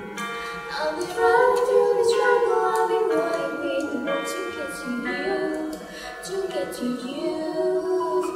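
Two women singing together, holding long notes.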